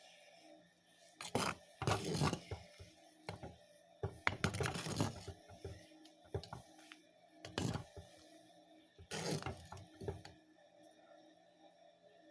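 A spoon scraping and knocking around a pot while curry is stirred, in several short irregular bouts, over faint background music.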